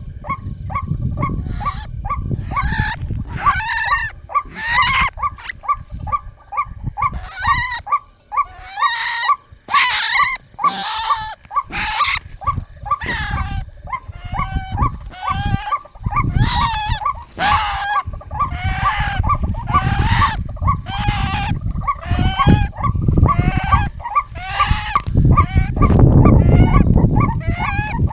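White-breasted waterhen (ruak-ruak) calling: a fast, regular series of short croaking notes, about two or three a second, mixed with louder harsh calls, over a low rumble that swells near the end.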